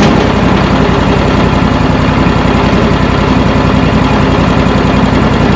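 Mechmaxx 36 band sawmill's gasoline engine running steadily at speed during a cut, with an even low pulsing beat.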